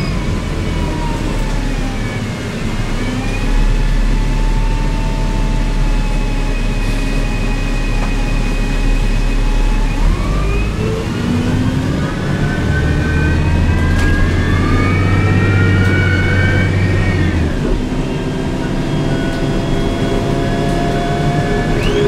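Heard from inside the cabin, a hydrogen/CNG-fuelled Cummins C Gas Plus engine and its drivetrain running a New Flyer C40LF bus along. The bus gives a low steady hum with high whines that fall in pitch as it slows at first, then climb as it gathers speed from about halfway in, before dropping away about three-quarters in.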